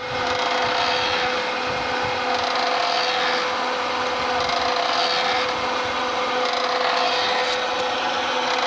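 Poultry manure scraper machine running: a steady hum over a constant, even scraping noise.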